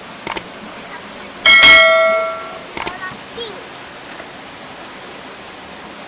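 A single metallic clang about a second and a half in, ringing out and fading over about a second. Short sharp clicks come just before and after it, over a steady hiss.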